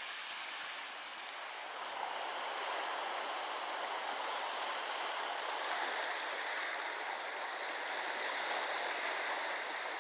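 Steady rushing outdoor ambience at a seashore campsite, an even hiss with no distinct events, rising a little about two seconds in.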